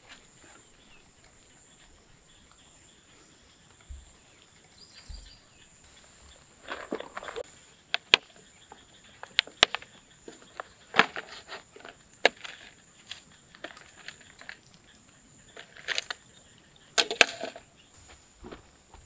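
Scattered sharp clicks and short plastic-and-metal clatters as a plastic tackle box and a metal spoon lure are handled on a folding table; nearly quiet at first, the clicks come irregularly from about a third of the way in.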